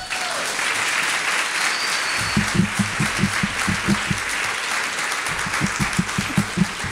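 Audience applauding: a dense, steady clatter of many hands clapping. From about two seconds in, a regular low beat of louder, closer claps runs under it, about five a second.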